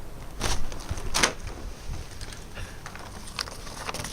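A thin sheet of ice being smashed: two short, sharp crashes less than a second apart, followed by a few faint clicks of pieces settling.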